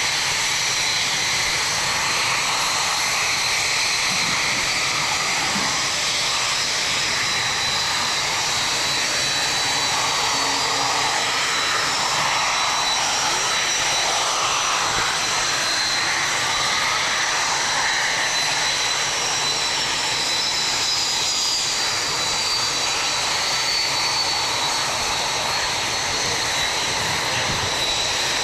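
Mitsubishi T-2 jet trainer's twin Adour turbofan engines running at low taxi power: a steady rushing noise with a high, steady turbine whine, and a second whine above it that drifts slightly in pitch.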